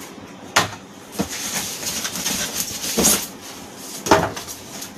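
Cardboard packaging being handled as pieces are lifted out of a printer's shipping box: a few sharp knocks and scrapes of cardboard, the loudest near the end.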